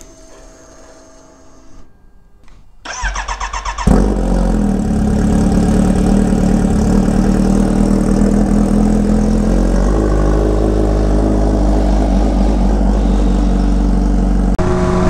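Kawasaki Ninja H2R's supercharged inline-four being started. The starter cranks for about a second, then the engine catches with a loud burst and settles into a steady idle.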